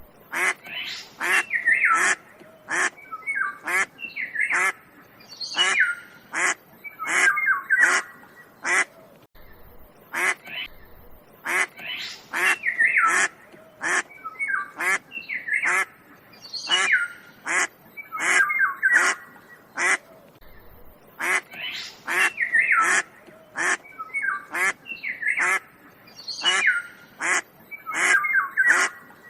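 Ducks quacking: short, sharp quacks repeated over and over, with longer, wavering calls among them.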